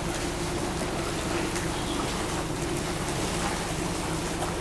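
Water splashing and sloshing as a man runs through waist-deep pool water, driving his arms and legs against it. A steady low hum sits underneath.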